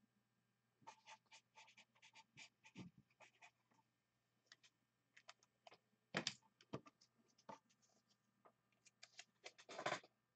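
Faint handling noises at a desk: scattered small clicks and scrapes, with a louder knock about six seconds in and another cluster near the end.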